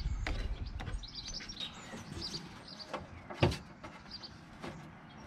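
Scattered light knocks and rubbing as a silicone coolant hose is worked by hand onto the engine's coolant outlet pipe, with one sharper knock about three and a half seconds in. Small birds chirp faintly in the background.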